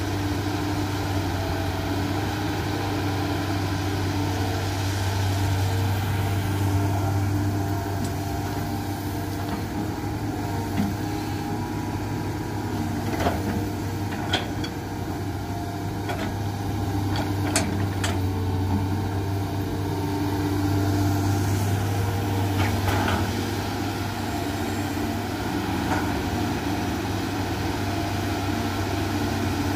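Hitachi hydraulic excavator's diesel engine running steadily as the machine digs and swings through wet mud. Several short, sharp knocks are heard about halfway through and again later.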